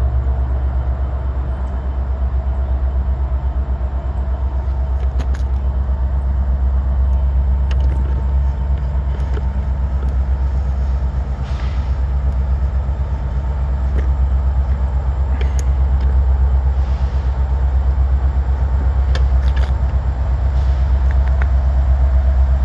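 Steady low rumble of a train's diesel locomotive engine, growing a little louder near the end.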